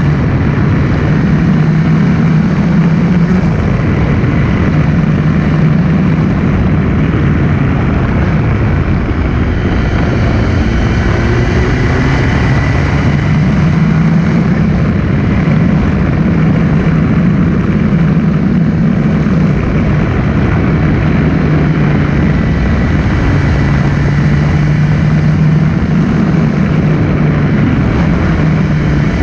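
Onboard sound of a sport motorcycle engine running at steady mid revs, its drone holding near one pitch and easing off and picking up again several times through the bends. Heavy wind rush on the microphone runs under it.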